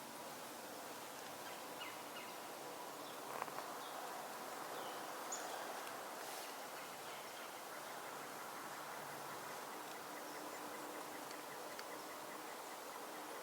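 Faint woodland morning ambience: a low steady hiss with a few scattered short bird chirps and a soft click about three and a half seconds in.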